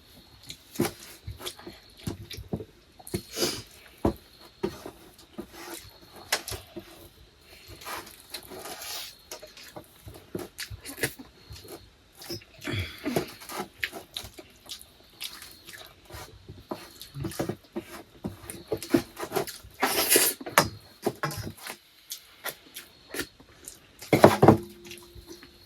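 Close eating sounds: wet chewing and lip smacks with scattered small clicks, as rice and egg curry are eaten, with a louder burst about two-thirds of the way through.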